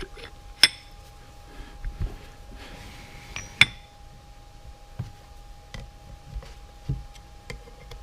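Metal tooling being handled on a bench: two sharp metallic clinks with a short ring, about half a second in and again near the middle, among lighter knocks and taps.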